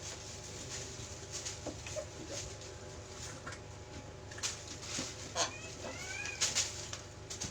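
Scattered light clicks and rustles over a steady low hum. Near the end comes a short bird call of a few rising chirps.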